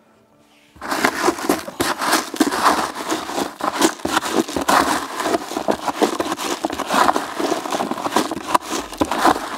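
Hands mixing carp groundbait in a bucket: pellets and small boilies wetted with liquid attractant, stirred and turned over as a dense, irregular run of small clicks and rustling that starts about a second in.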